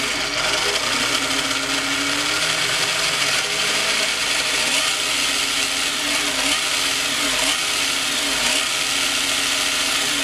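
Remo Hobby 1621 1/16-scale RC short course truck's brushed electric motor and four-wheel-drive gearing running steadily under throttle. The truck is up on a stand with all four wheels spinning freely in the air. It is a continuous whirring motor-and-gear sound with slight wavers in speed.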